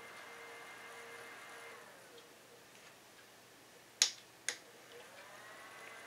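The small motors of a JACESS rechargeable neck twin fan whir steadily, then wind down about two seconds in. Two sharp clicks come from its control button about four seconds in. After the clicks the fans spin back up with a rising whine.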